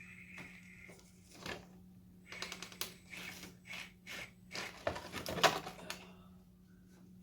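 Small 1/24-scale RC crawler clattering over course obstacles: a run of irregular clicks and knocks, loudest about five seconds in, over a faint steady hum.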